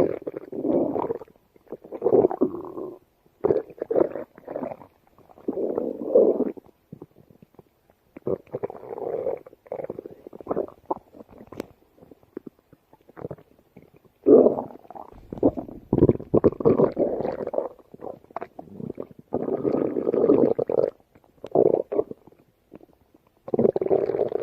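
A stomach growling: a run of gurgling rumbles, each from under a second to a few seconds long, with short pauses between them.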